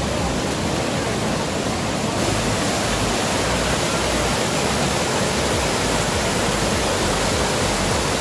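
Steady rushing of a canyon river: water pouring over rocks.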